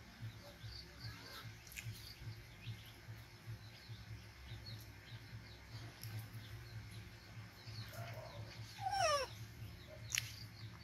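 Small birds chirping faintly over a low steady hum, then near the end a single loud falling animal call about half a second long, followed by a sharp click.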